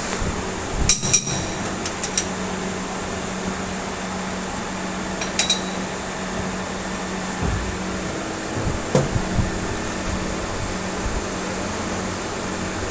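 Steady machine hum with a few sharp, ringing metallic clinks, two close together about a second in and another about five seconds in, and a couple of duller knocks later.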